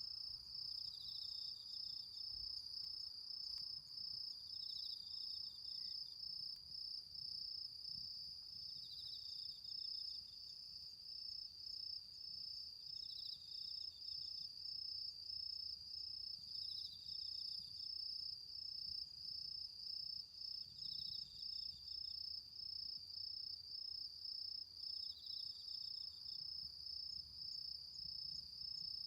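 Autumn crickets singing: one trills steadily at a high pitch, while another gives a short chirping phrase about every four seconds.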